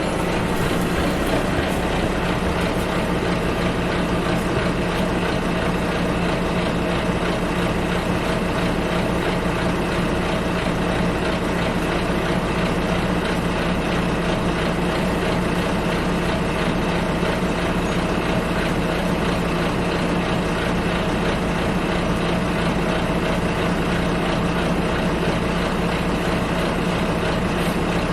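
Bus engine running, heard from inside the passenger cabin: a steady, even drone with a low hum that does not change.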